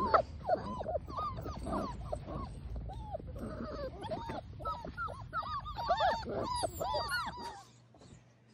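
A litter of Labrador retriever puppies whining and yipping: many short, high, arching cries overlapping one another, cutting off suddenly near the end.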